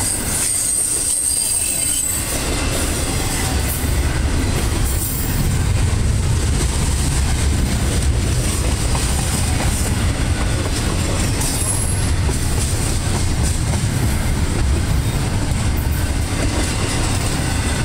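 Double-stack intermodal freight cars rolling past on the rails: a steady low rumble of wheels on track that grows a little louder about four seconds in, with a thin high wheel squeal over the first two seconds and a brief one again near twelve seconds.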